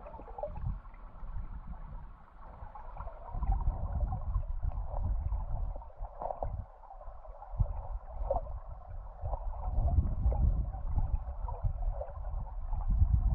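River current heard underwater through a submerged camera: a low rumble that swells and fades every second or two, with a crackly hiss and scattered faint ticks over it.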